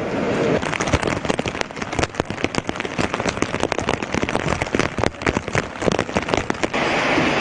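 Heavy rain falling, with many sharp, close drop hits over an even hiss. Near the end the hits stop, leaving a steadier hiss.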